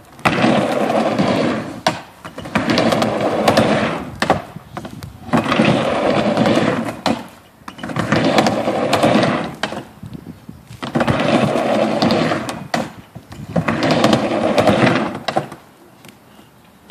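Skateboard wheels rolling on a wooden half pipe, a rolling rumble that swells and fades about six times as the skater goes back and forth, dropping away at each turn at the ramp tops, with sharp clacks at some of the turns. It goes quieter near the end.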